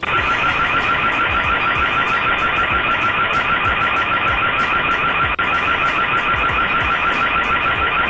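Loud electronic alarm siren, a rapidly warbling high tone sounding without a break, with a brief dip about five seconds in.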